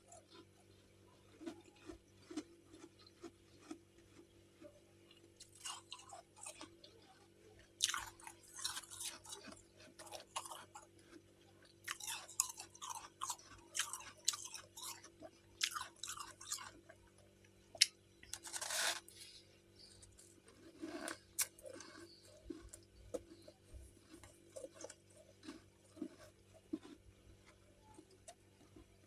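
Mouthfuls of freezer frost being bitten and chewed: bursts of crisp crunching, the busiest stretch in the middle and one loud crunch about two thirds through, with quieter chewing in between.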